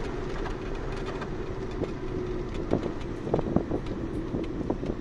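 Car engine and road noise heard from inside the cabin while driving. A steady engine drone eases slowly lower in pitch, with a few short rattles around the middle.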